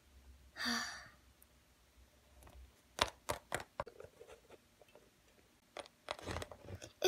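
Faint handling sounds of small plastic Littlest Pet Shop figures being moved and set down on a wooden tabletop. There are a few sharp clicks of taps about three seconds in, and softer scuffs near the end. A short breathy sound comes near the start.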